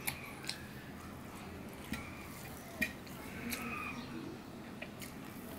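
A bare hand mixing and squeezing cooked rice with red amaranth greens on a steel plate: soft wet squishing with a few short sharp clicks, the loudest a little under halfway.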